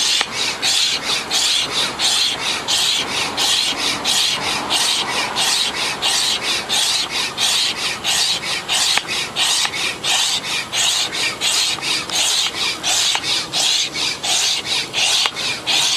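Hand pump inflating an inflatable stand-up paddleboard: quick, even strokes of rushing air, about two and a half a second.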